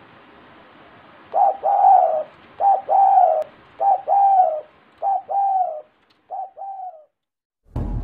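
Spotted dove (tekukur) giving its courtship coo: five phrases a little over a second apart, each a short note followed by a longer, slightly falling coo. Intro music starts loudly near the end.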